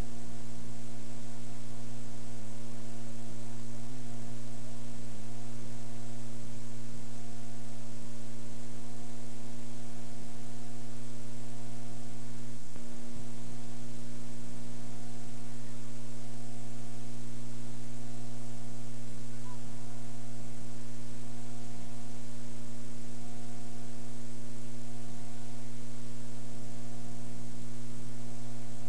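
Steady electrical mains hum with several overtones over a faint hiss, from the playback of a VHS home-video tape that carries no recorded sound.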